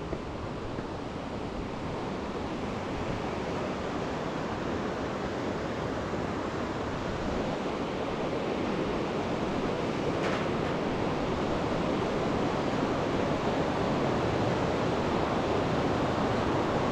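Rushing river water, a steady whitewater roar that grows slowly louder.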